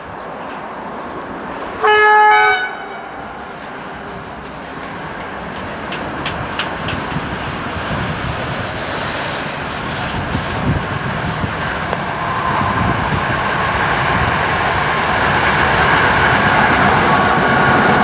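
A CFR class 40 electric locomotive hauling a passenger train sounds one short horn blast about two seconds in, its pitch stepping down partway. The train then approaches, its running noise and wheel clicks growing steadily louder, with a steady whine joining in over the last few seconds as it draws level.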